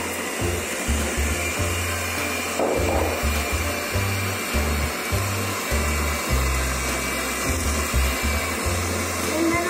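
Electric hand mixer running steadily at speed, its twin beaters whisking egg yolks and sugar in a bowl.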